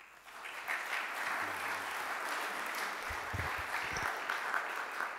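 Audience applauding, building up over the first second and thinning out near the end. A few low thumps about three seconds in, from the lectern microphone being handled.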